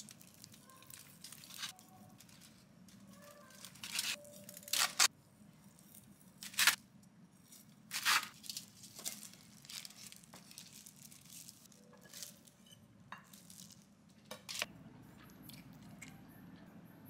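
A chef's knife cutting through a rack of glazed ribs on a foil-lined tray, with the crinkle of the foil and the rustle of plastic gloves. There is a run of sharp crackling, tearing strokes, loudest between about four and eight seconds in, and a few smaller ones later.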